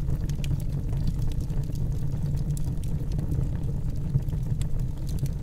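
Fire sound effect: a steady low roar of flames with scattered crackles.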